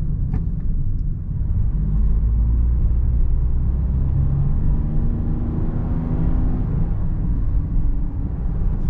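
Toyota Sienta's 1.5-litre three-cylinder petrol engine heard from inside the cabin while accelerating, its note rising in pitch for a few seconds and easing off near the end, over a steady low rumble of tyres and road.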